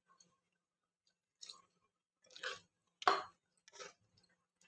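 A spatula stirring paneer cubes through a milky masala gravy in a pan, in four short strokes spread over a couple of seconds, the third the loudest.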